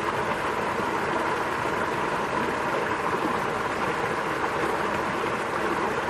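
Small stream cascading over rocks into a shallow pool: a steady rushing and splashing of water.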